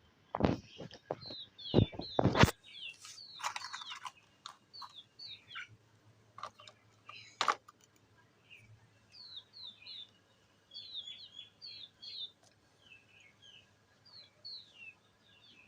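Small birds chirping in short, quick, falling notes, repeated on and off throughout. Several loud sharp knocks come in the first two seconds or so, and a single one about halfway.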